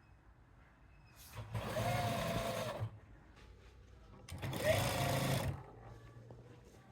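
Electric sewing machine running in two short bursts of stitching, about a second and a half each, the motor speeding up and winding down each time.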